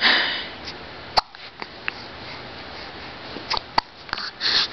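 Repeated hiccups: short, sharp catches at uneven gaps. There is a breathy sniff at the start and another near the end.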